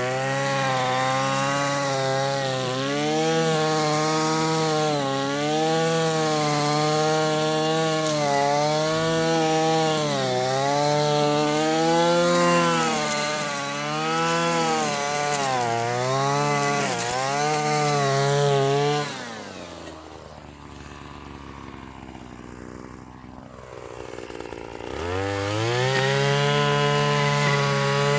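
Hyper Tough gas string trimmer (weed eater) running at high throttle while cutting, its engine pitch rising and falling as the load changes. About two-thirds of the way through it drops to a quieter idle for several seconds, then revs back up to full speed near the end.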